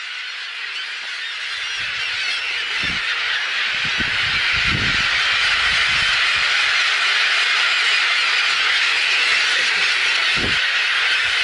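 A large colony of gulls calling all at once overhead, many cries blending into one continuous din that grows louder over the first few seconds and then holds. A few low thumps sound under it.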